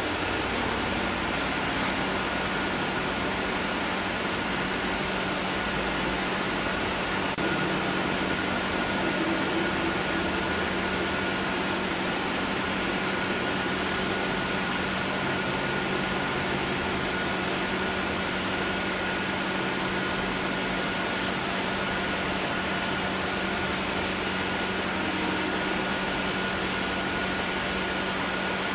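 Steady mechanical hum and hiss with a constant high whine and a low hum, unchanging.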